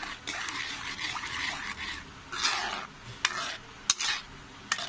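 A spatula stirring cornflour-thickened soup in a pan: repeated wet swishing strokes, with a couple of sharp clicks of the spatula against the pan near the end.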